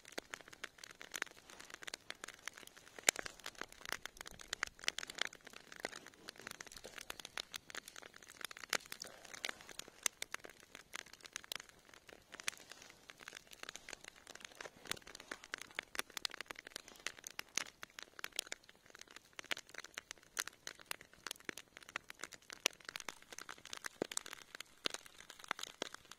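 Embers of a smouldering wood fire crackling: a dense, steady run of small, irregular pops.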